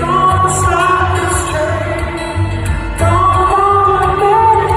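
Live male vocal with solo acoustic guitar, heard through an arena's PA system, the voice holding long, gliding notes over the strummed guitar.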